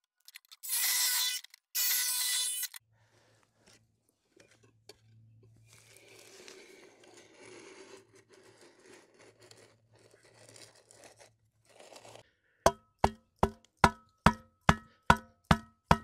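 A cordless jigsaw cuts through a board in two short bursts near the start. Near the end comes a quick run of about ten sharp knocks, roughly three a second, each with a short ring, as the end of a wooden-handled tool taps the board down flush onto wet concrete.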